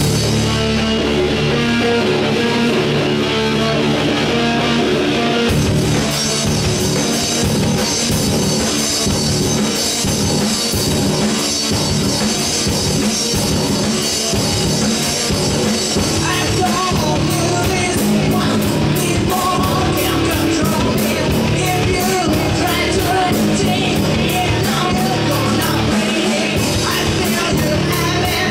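Rock band playing with electric guitars, bass guitar and drum kit. Sustained guitar and bass chords open it, the drums come in with a fast steady beat about five and a half seconds in, and cymbal hits join on the beat for the last third.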